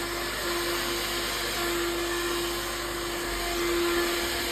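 Handheld hair dryer running steadily, air rushing with a constant motor hum, while the hair is blow-dried.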